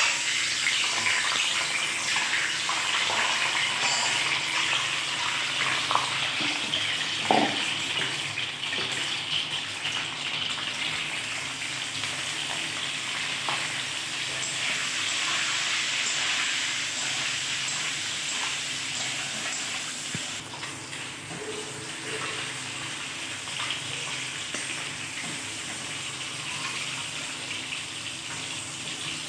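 Peeled boiled eggs sizzling in hot oil in a metal wok, a steady hiss that starts suddenly as they go in and eases a little later on, with a few light knocks against the pan about seven seconds in.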